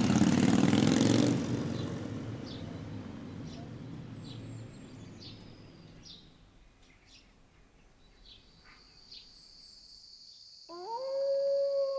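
A motorcycle engine runs loud as it pulls away, then fades into the distance over several seconds, with faint high chirps above it. About ten and a half seconds in, a long, steady animal howl begins.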